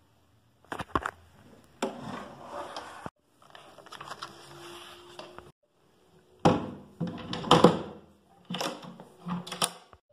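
A storage case being handled: knocks and clicks of its lid and metal latch, with cables shuffling inside. The sharpest, loudest clatter comes in the second half.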